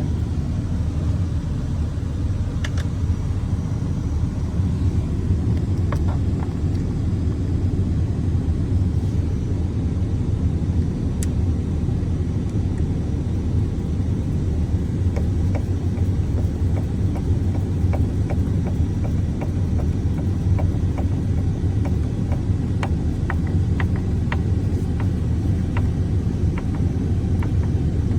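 Steady low rumble throughout, with faint scattered clicks of small door-handle parts being handled and snapped in, a run of them in the last few seconds.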